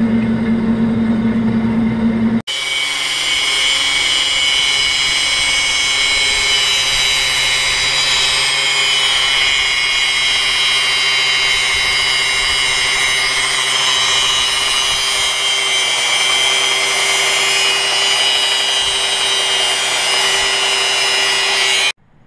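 A metal-cutting vertical bandsaw running on steel plate for about two seconds, then an abrupt change to an angle grinder grinding steel plate, a steady high whine with grinding noise. The grinding is most likely cutting a V-groove into the edges for welding. It stops abruptly near the end.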